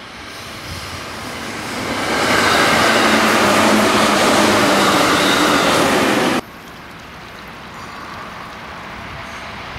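A JR 211 series electric multiple unit coupled to a 313 series unit passing close by: rolling noise builds over the first two seconds and stays loud as the cars go past, then cuts off abruptly about six seconds in, leaving a much quieter steady rumble.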